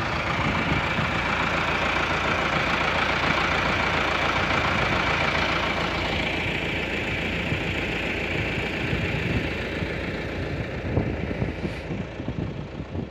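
Farm tractor engine running steadily close by, growing fainter over the last few seconds.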